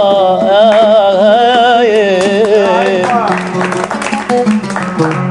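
A singer holds a long, wavering final note of an Arabic song over a plucked-string accompaniment. About three seconds in, the singing stops and people start clapping while the strings keep sounding.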